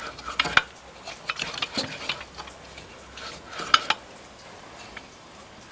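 Light metal clinks and scrapes of tools and engine parts being handled, in three short clusters with the sharpest clicks about three and a half seconds in. The handling goes quiet after about four seconds.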